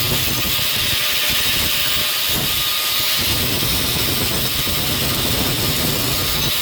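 A power tool grinding steel needle-nose pliers, a continuous steady hissing grind, evening out the broken tip of the nose.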